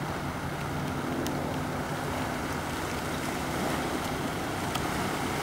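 Land Rover Defender's engine running steadily under a rumble of road and wind noise, with a few faint ticks.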